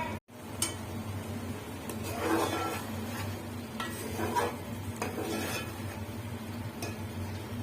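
Metal spoon stirring and scraping in a cooking pot, with scattered clinks of utensils, over a steady low hum.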